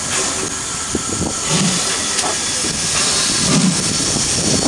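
VR Class Hr1 'Ukko-Pekka' steam locomotive hissing steam steadily as it pulls away, with two low puffs about a second and a half and three and a half seconds in.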